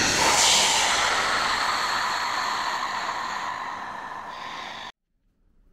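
Intro sound effect: a loud whooshing rush of noise that starts suddenly, fades slowly over about five seconds and cuts off abruptly.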